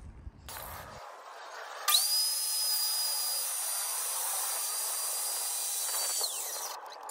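Red corded circular saw starting with a sudden rising whine about two seconds in, running at a steady high pitch for about four seconds, then released and winding down near the end.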